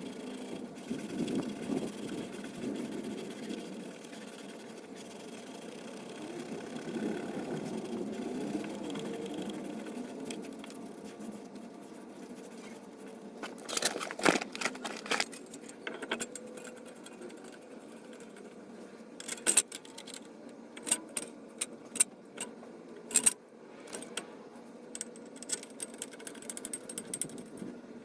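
Hand tools and metal parts being worked on a car's front wheel hub: a steady scraping, rubbing noise through the first half, then sharp metallic clinks and rattles, a cluster about halfway through and a run of louder clanks over the last third.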